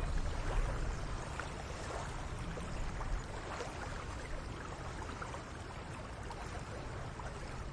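Running stream water, a steady rush with small gurgles and splashes.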